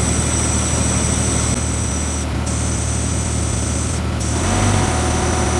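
Air hissing steadily out of a 37-inch off-road tire as it is let down toward 12 psi, over a steady low engine hum.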